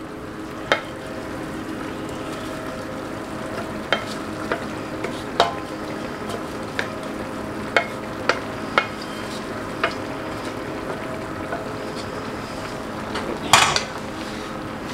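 Vegetables frying in olive oil in a pot with a steady sizzle, while a wooden spatula scrapes broccoli out of a stainless steel skillet into it, with a run of sharp taps against the pan. Near the end comes a louder metallic clatter as the skillet is set down on the stove grate.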